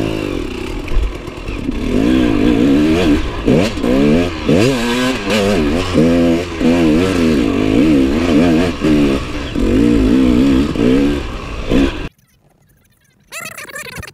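Enduro dirt bike engine revving up and down again and again as it is ridden over rough ground, with some clatter, then cutting off abruptly about twelve seconds in. A short, faint warbling squeak follows near the end.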